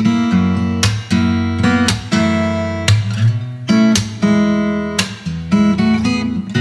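Background music of an acoustic guitar playing strummed chords, the chords changing every second or so.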